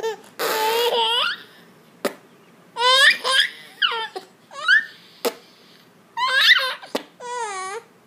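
Baby laughing hysterically in about six high squealing bursts that slide down in pitch, with a few sharp pops in between.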